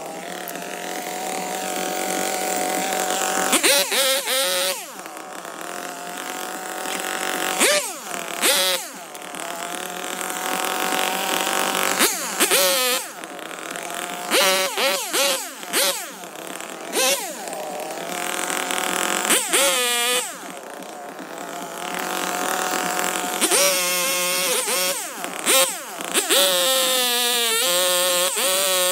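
Two-stroke chainsaw cutting branches. It runs at high speed in stretches of a few seconds, and between cuts the engine note drops and climbs back up, several times over.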